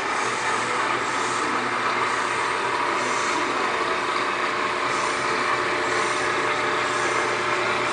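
Automatic gate opener motor running steadily under power, with a constant hum, during a travel-learning run on its control board.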